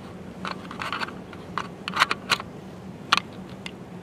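Scattered short clicks and small knocks, about half a dozen at uneven intervals, over a steady low hum.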